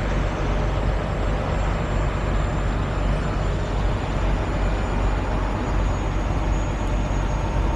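Heavy diesel truck engine idling with a steady low drone.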